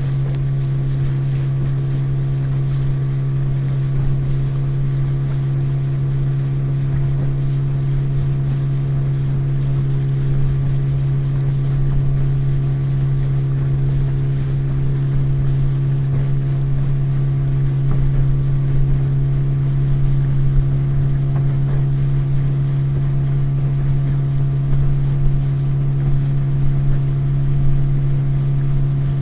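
Motorboat engine running steadily at cruising speed, a constant low hum with a wash of water and wind noise under it.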